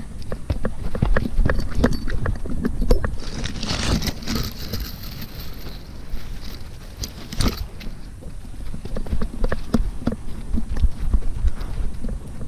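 A Border Collie running through woodland, heard from the camera it wears: fast, irregular thuds of its strides and the camera jolting, with the rustle of pushing through dry ferns about four seconds in.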